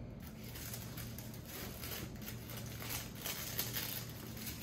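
Packaging being handled and opened: irregular rustling and crinkling scrapes, with a faint steady low hum underneath.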